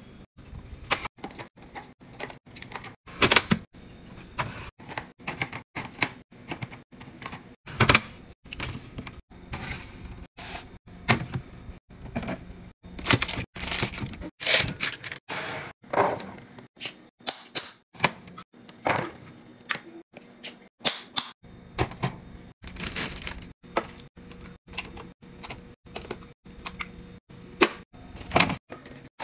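Plastic-wrapped food packages and clear plastic bins being handled and set into a refrigerator: an irregular run of taps, clicks, knocks and rustles of plastic, several a second, with a few louder knocks.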